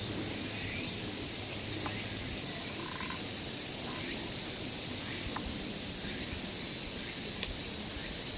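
Steady chorus of cicadas, a continuous high-pitched buzz that does not let up, with a few faint short chirps.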